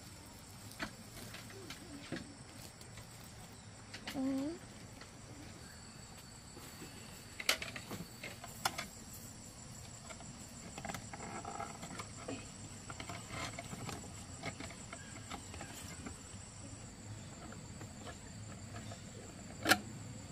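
Steady high-pitched insect drone, with a handful of sharp knocks and clatters scattered through; the loudest knock comes near the end, and a short low pitched sound comes about four seconds in.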